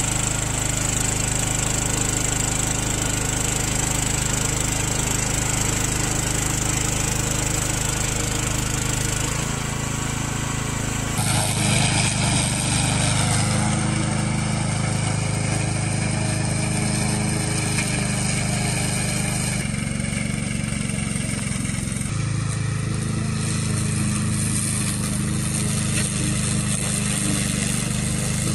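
Tracked remote-control slope mower's engine running steadily while it cuts through tall grass and reeds. The sound changes abruptly a few times between clips.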